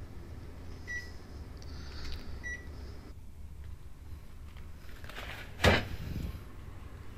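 Household handling sounds in a small kitchen: two short electronic beeps, about a second and a half apart, over a low hum that drops away about three seconds in. Then, near the end, a louder knock with rustling.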